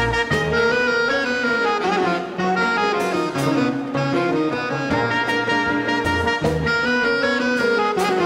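Dance orchestra playing a Latin dance tune, with saxophones and brass holding sustained melody notes over a moving bass line and steady percussion.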